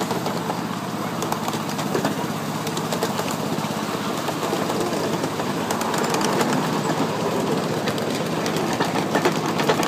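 Ride-on miniature railway train running along its track: a steady rumble of wheels on rail with clicking over the rail joints, the clicks coming thicker near the end.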